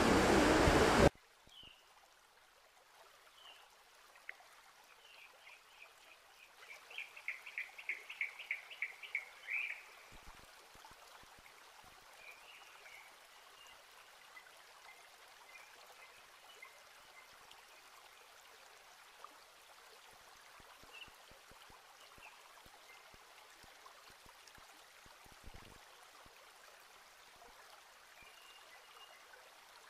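A loud rush of noise cuts off about a second in. Then a small bird calls: a rapid run of repeated chirps that swells over a few seconds, followed by scattered short calls over a faint steady hiss.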